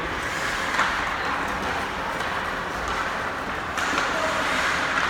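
Ice hockey game noise in a rink: a steady hiss of skates scraping the ice, with a sharp click about a second in. The hiss grows louder near the end.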